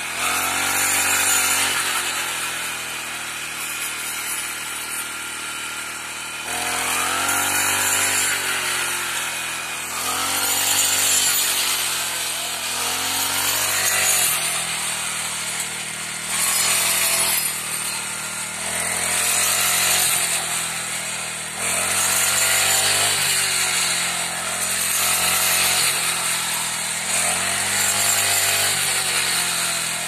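Small backpack-mounted engine of a mini rice harvester, driving its cutter head through a flexible shaft. It runs continuously, its pitch and loudness rising and falling every two to three seconds as the cutter works through standing rice.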